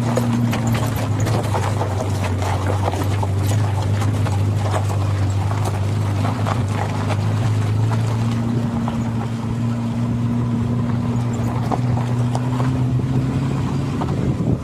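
Volkswagen Saveiro pickup running, with a steady low engine hum and scattered knocks and rattles from the front suspension. The owner traces the knocking to a worn-out bushing at the ball joint.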